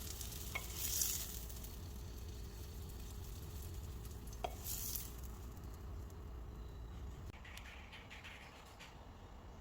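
Food sizzling in a frying pan while being stirred, with a couple of light utensil clicks; the sizzle dies down after about five seconds.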